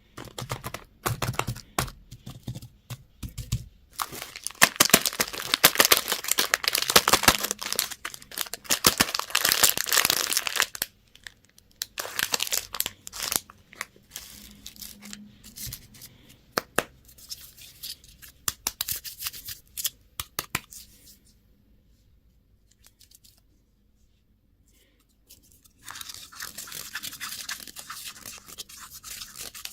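Plastic candy and lollipop wrappers being torn open and crinkled: a dense crackle for several seconds, then sparser crinkles and snaps. There is a short quiet gap about three-quarters of the way through, then a steadier rustling near the end.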